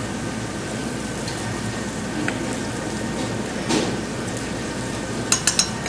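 Wooden spoon stirring paprika, onions and bacon fat around a stainless steel pan, over a steady hiss. The spoon knocks the pan once a little before four seconds in and taps it several times in quick succession near the end.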